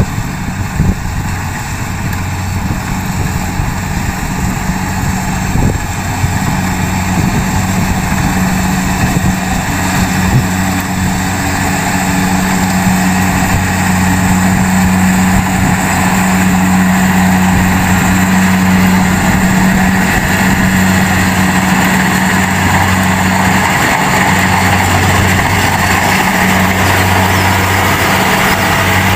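Kubota DC70G rice combine harvester running under load as it cuts and threshes rice: a steady engine hum with machinery noise over it. It grows louder over the first half as the machine comes close, then holds.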